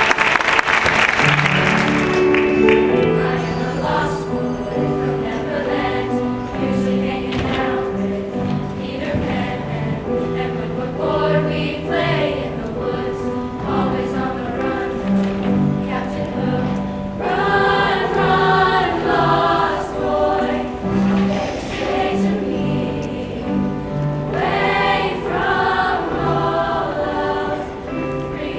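Applause for about the first two seconds, then a junior high choir singing with musical accompaniment.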